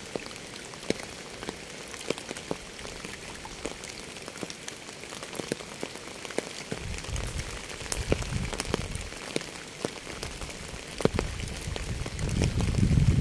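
Rain falling on a surface, with many separate drops ticking close by over a steady hiss. About seven seconds in, and again near the end, a low rumble swells up beneath it.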